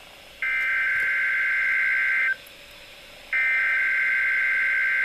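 NOAA Weather Radio Emergency Alert System (SAME) header: two bursts of digital data tones, each about two seconds long with about a second's gap. They mark the start of the National Weather Service's required weekly test.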